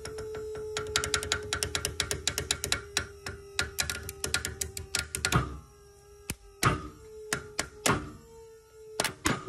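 Caving rope tied with a Zeppelin bend crackling under break-test load: a fast run of sharp cracks and pops for about five seconds, then a handful of louder, separate snaps as the rope fails, over a steady hum.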